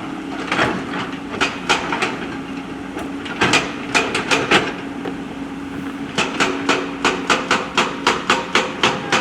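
Backhoe loader's diesel engine running steadily under repeated sharp knocks of the bucket working among stones. From about six seconds in, the knocks turn into a fast regular clacking of about four strikes a second.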